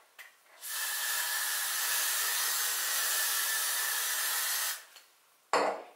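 Aerosol hairspray can spraying in one steady hiss for about four seconds, then a short knock near the end.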